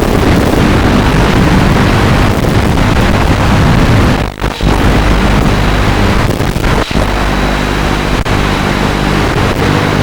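FPV quadcopter's electric motors and propellers buzzing loudly, with wind rushing over the onboard microphone. The sound dips sharply for a moment about four seconds in and twice more later.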